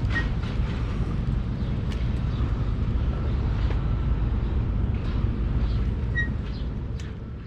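Steady low rumble of outdoor road and wind noise, with a few faint clicks, fading away near the end.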